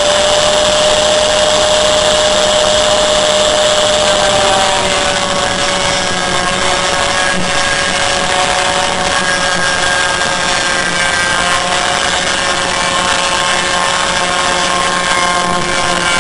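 Angle grinder with a thin metal-cutting disc running steadily while cutting through an aluminium panel, a constant high whine over a harsh grinding hiss. The whine sags slightly about four seconds in.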